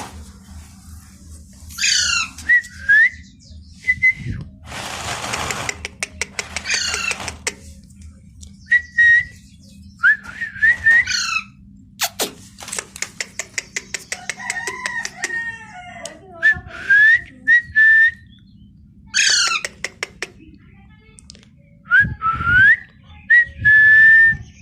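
Parrot whistling and chirping: short rising whistles and quick falling chirps in repeated bouts, with runs of rapid clicks between them and a brief raspy burst about five seconds in. A longer held whistle comes near the end.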